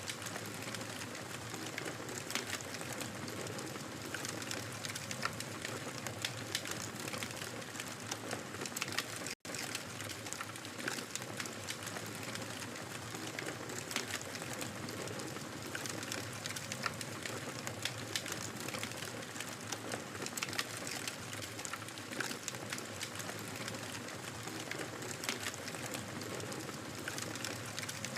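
Wood fire crackling steadily, with frequent sharp pops and snaps over a soft hiss of burning; the sound cuts out for an instant about nine seconds in.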